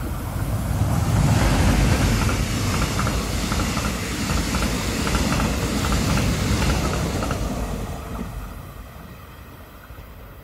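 Mugunghwa-ho passenger train, hauled by an electric locomotive, passing close by: a rumble and rush of wheels on rail that builds over the first second or two and holds while the coaches go by, with a regular clicking of wheels over the track. It fades away over the last few seconds as the train recedes.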